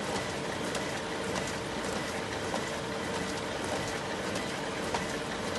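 Xerox Versant 2100 digital press running and feeding printed sheets into its output tray: a steady mechanical whir with a constant hum and faint ticks.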